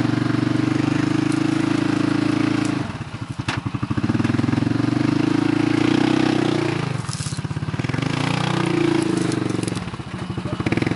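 Yamaha Rhino side-by-side's engine working hard under load, climbing out of a steep dirt gully. Its revs sag about three seconds in and again near the end to a slow chugging, then pick back up.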